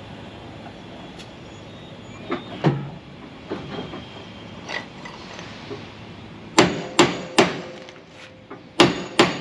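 A hammer pounding on a semi-trailer's sliding-tandem locking pins to free them where they have stuck. There are a few lighter knocks, then about two-thirds of the way in, five hard metal blows in two quick groups.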